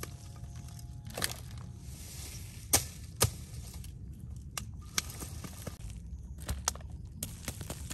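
Freshly dug ginger rhizomes being broken apart and handled into a woven bamboo basket: scattered sharp snaps and knocks, the two loudest about half a second apart around three seconds in, over a low steady outdoor rumble.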